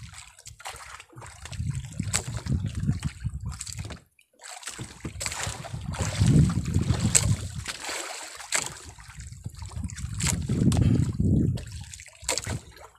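Water splashing and sloshing against the side of a small boat in irregular surges, with scattered knocks and clicks from handling at the gunwale.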